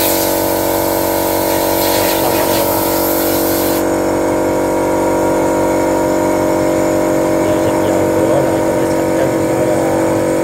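Motor-driven pump humming steadily while a hose nozzle sprays oil with a hiss over an engine block's crankshaft, washing it clean.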